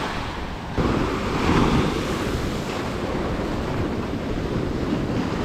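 Small waves breaking and washing up a sandy beach, with wind buffeting the microphone; the surf grows louder a little under a second in.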